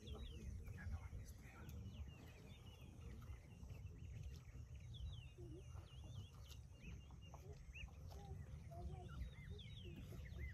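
Small birds chirping and calling in many short rising and falling notes, over a steady low rumble.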